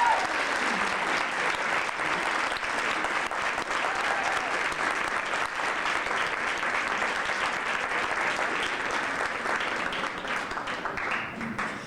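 An audience applauding after a song, dense steady clapping that thins out and dies away near the end.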